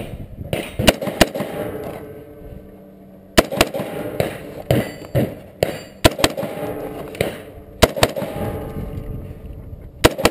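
Gunshots on a 3-gun competition stage: about a dozen single shots at irregular intervals, with a pause of nearly two seconds early on before the firing picks up again.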